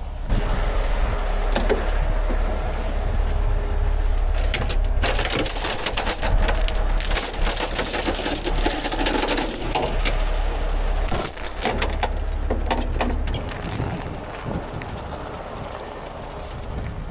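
Heavy steel recovery chain clanking and rattling as it is pulled out of a tow truck's chain compartment and handled, the clinks thickest in the middle, over a steady low rumble.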